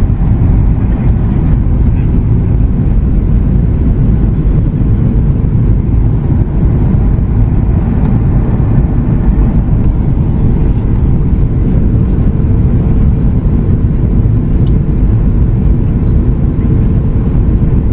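Cabin noise of a Boeing 737 MAX 8-200 in flight: a loud, steady rush of airflow and CFM LEAP-1B engines. A faint steady hum comes in about four seconds in.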